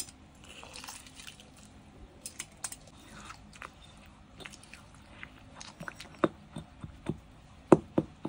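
Granite pestle pounding and stirring wet shrimp-paste chili dip in a granite mortar: soft wet squelching with scattered knocks of the pestle against the stone, getting sharper and more frequent in the last two seconds.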